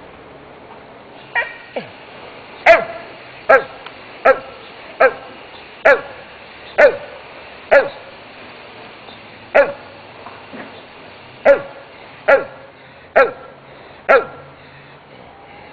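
A Schnauzer barking over and over, single sharp barks about one a second, a dozen or so in all, starting a little over a second in.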